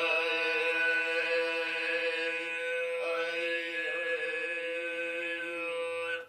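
Altai throat singing in the kömöj style: one long, steady held drone with a strong ringing overtone band above it, sung on a single breath that cuts off just before the end.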